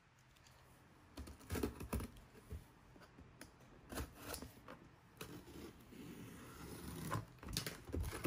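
Scattered light clicks, taps and scrapes of hands handling a cardboard shipping box while a utility knife cuts along the packing tape.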